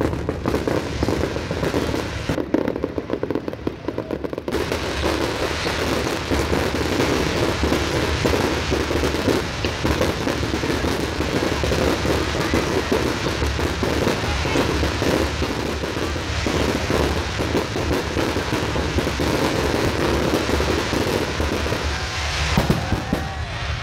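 Fireworks display: a dense, continuous crackle of many rapid small bursts, thinner for the first few seconds and then thickening into an unbroken barrage.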